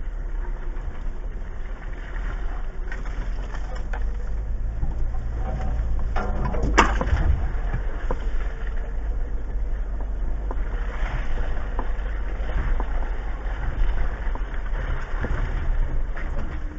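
Jeep Wrangler Rubicon crawling slowly over a rutted dirt trail: a steady low rumble of engine and tyres, picked up by a dashcam inside the cab, with one sharp knock about seven seconds in.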